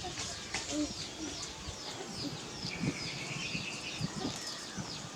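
Small birds chirping over and over in quick, high, short notes, with one longer high note held about three seconds in.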